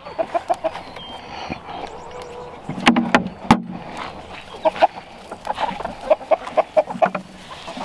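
A flock of chickens clucking, with many short calls overlapping. A couple of sharp knocks come about three seconds in.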